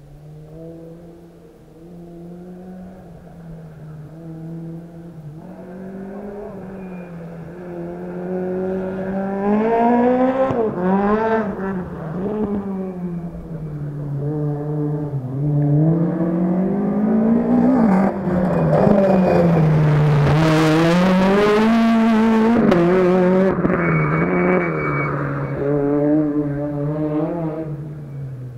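Rally car engine revving hard up and down through its gears as the car climbs the mountain stage, getting steadily louder as it approaches. It is loudest about two-thirds of the way through, when it comes closest, then drops back a little.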